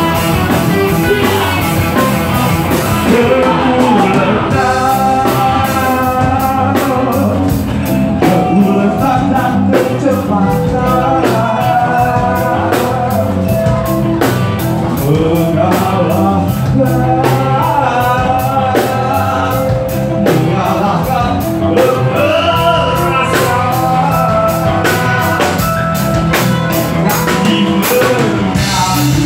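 Rock band playing live, with drums keeping a steady beat under electric guitar and a singing voice.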